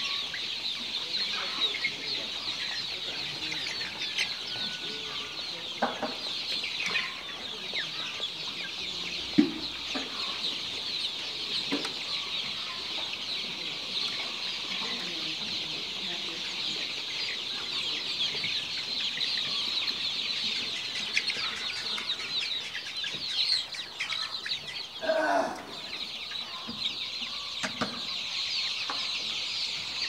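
A large flock of young chickens in a crowded poultry house peeping continuously in a dense, high-pitched chorus of overlapping short calls. A brief louder call stands out near the end.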